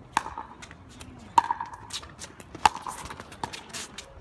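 Pickleball rally: three sharp paddle strikes on the hollow plastic ball, about a second and a quarter apart, each a hard pock with a short ring. Softer ticks fall between them.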